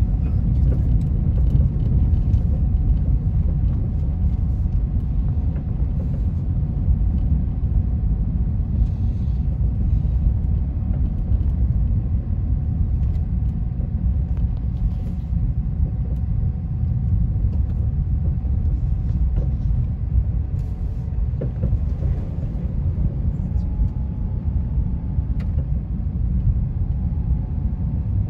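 Steady low rumble of a car driving, heard from inside the cabin: engine and tyre noise on the road, with a faint steady whine running through it.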